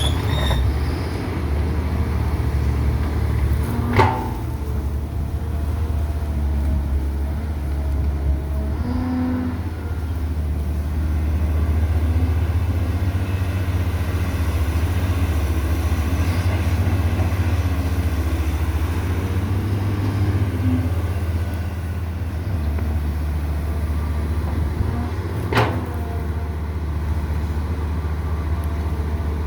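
Caterpillar 320 hydraulic excavator's diesel engine running steadily, with a sharp knock about four seconds in and another near the end.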